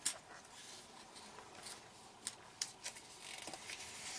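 Faint handling noises: a few light clicks and taps as small plastic pieces from a Kinder Surprise egg are put down and moved on a tabletop.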